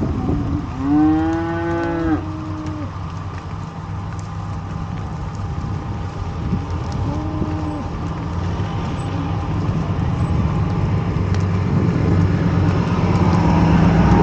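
Cattle mooing: one loud, drawn-out call and a shorter, fainter one a few seconds later, over a vehicle engine running steadily that grows louder near the end.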